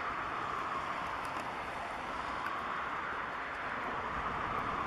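Airbus A340-300's four CFM56 turbofan engines at low taxi power while the airliner turns to line up for takeoff: a steady jet hiss and whine that swells slightly near the end.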